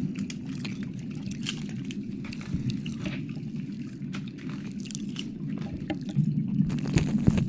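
Close-up wet mouth sounds: licking and lip smacking right at the microphone, a stream of irregular moist clicks and pops, a few louder ones near the end.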